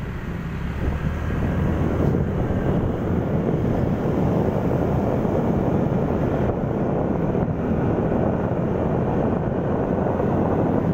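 Wind buffeting the microphone on a moving motorcycle, with the engine and road noise running underneath. It grows louder about a second in and then holds steady.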